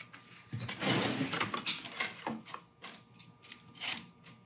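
Scraping, rubbing and light taps from foamcore pieces and hand tools being handled at a workbench, with a longer scratchy stretch about a second in.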